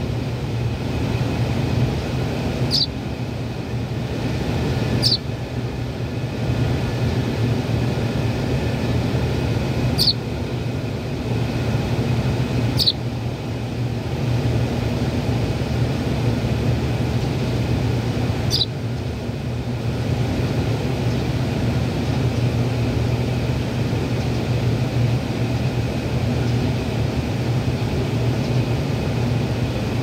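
House sparrow fledgling giving five short, high chirps spread over the first twenty seconds: begging calls. A steady low mechanical hum runs beneath them.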